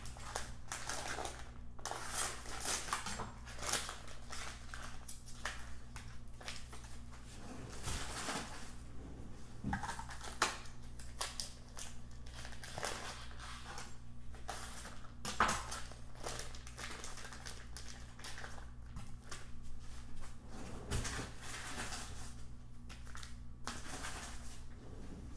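Plastic food packaging crinkling and rustling in irregular bursts as raw meat is unwrapped and handled on a cutting board, over a steady low hum.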